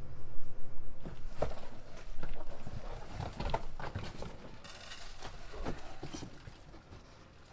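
Irregular knocks and rattles from wire rabbit cages being handled, thinning out toward the end.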